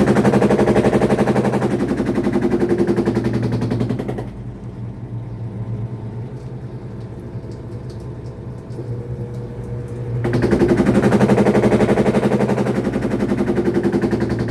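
Midea washing machine on its spin cycle, a loud rapid rattling knock. It eases to a quieter hum about four seconds in and comes back loud at about ten seconds. This is the excessive spin noise that the owner calls not normal.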